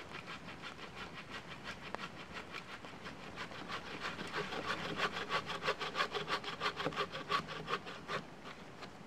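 Hand saw cutting through a log in quick, even back-and-forth strokes, about five a second. The strokes grow louder about four seconds in and stop about a second before the end.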